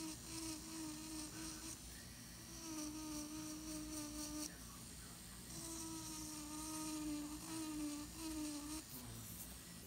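Electric nail drill with a fine bit grinding loose skin from around the nail edge in dry drill care. It gives a buzzing whine that wavers slightly in pitch, with a scratchy hiss alongside, and comes and goes in three stretches.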